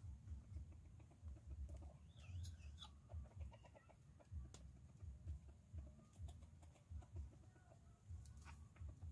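Faint chicken clucking and squawking, a wavering cry followed by a quick run of clucks about two to three seconds in, over repeated low thumps.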